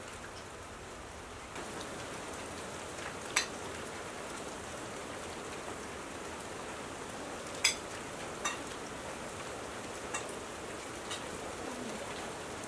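Steady rain falling, with a handful of louder single drops ticking close by.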